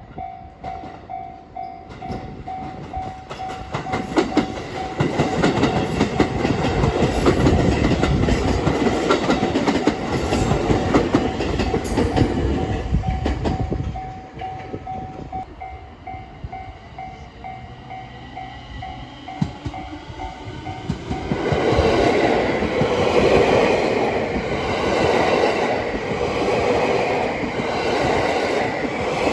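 A Japanese railway level-crossing alarm rings a steady repeating ding while a train runs over the crossing, its wheels clacking rapidly over the rail joints for about ten seconds. The alarm stops about 21 seconds in, and a loud stretch of train noise with a rhythmic beat follows to the end.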